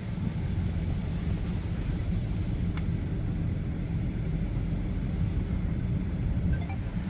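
Steady low rumble of a car, heard from inside the cabin, with a faint click about three seconds in.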